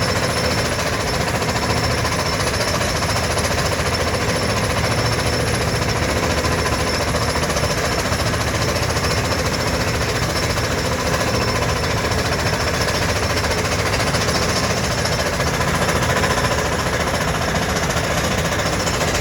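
Compressed-air T4 percussion drill rig hammering as it bores into the ground, a loud, steady, rapid rattle of blows without a break.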